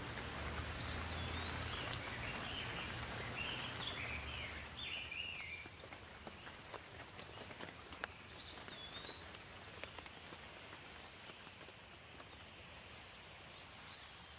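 Steady rain with scattered drops ticking, getting quieter about five seconds in. A bird chirps in quick up-and-down phrases between about one and five seconds in, and again briefly later.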